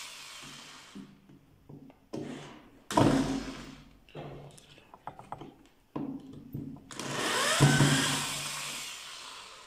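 Electric drill with a screwdriver bit backing screws out of a plastic speaker cabinet. The motor whirs in short runs, each dying away as the trigger is let go, with small clicks between; the longest run starts about seven seconds in.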